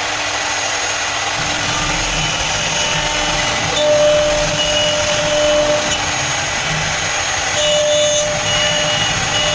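CNC router spindle running steadily while cutting a 2D jali pattern, a continuous high machine noise with thin tones that come and go.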